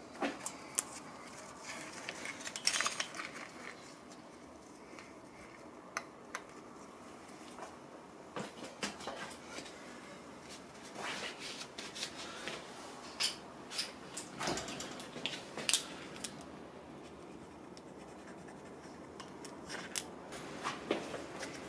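Faint handling sounds of hand work on a motorcycle engine's pushrod: scattered light clicks, taps and rubbing as parts and small tools are handled and the pushrod is wiped and marked.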